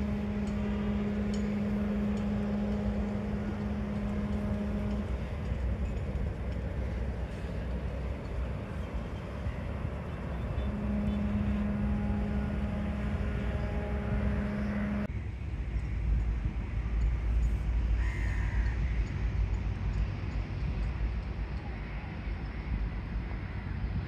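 Open-air ambience with a steady low droning tone, held about five seconds and again for about four seconds a little later, over a continuous low rumble. After an abrupt change the rumble grows stronger and a few short bird calls come through.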